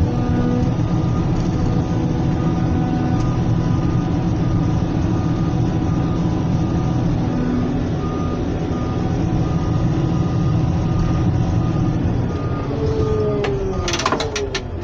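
Caterpillar 120K motor grader's diesel engine running steadily under load, heard from inside the cab, with an intermittent beeping tone over it. Near the end the engine note falls and there are a few sharp clicks.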